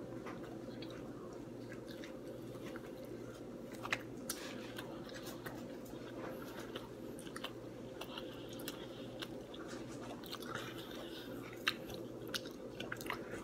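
A person chewing and biting pizza close to the microphone, with scattered sharp mouth clicks and smacks over a steady low hum.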